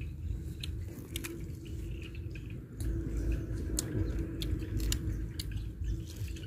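Someone chewing and crunching food close to the microphone, with scattered sharp clicks over a low rumble.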